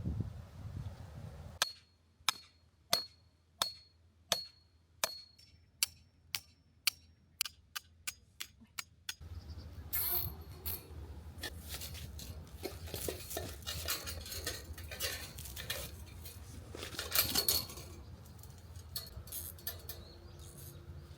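A series of light, ringing clinks that come steadily faster and closer together over about seven seconds, followed by a rustling, clattering background with scattered clicks.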